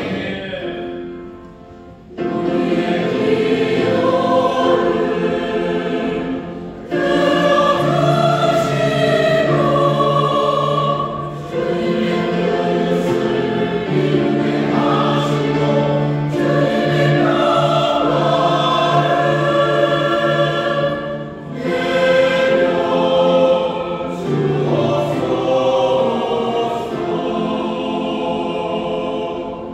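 Church choir singing an anthem in long held chords. It comes in about two seconds in, after a brief quieter moment, with short breaks between phrases.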